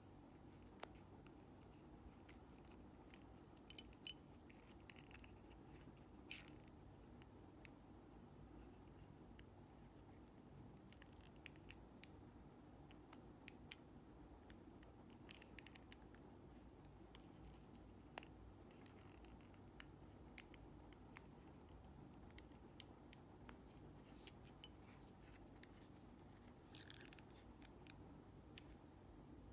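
Faint scratching and small clicks of a thin metal pry tool working around the plastic housing of a Sony MDR-Q38LW clip-on headphone earpiece, with a louder scrape near the end.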